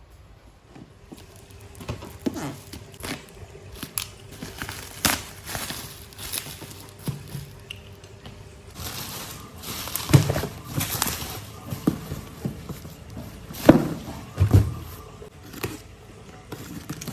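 Irregular knocks, taps and plastic crinkling from objects being handled, loudest in the second half.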